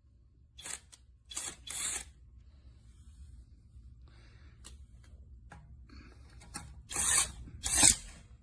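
Handling noise: about five brief scrapes and rustles, three in the first two seconds and two more near the end, with quiet between them.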